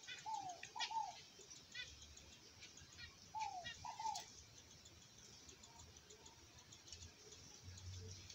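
Diamond dove cooing: two pairs of short, falling coos, the second pair about three seconds after the first, over faint high chirping.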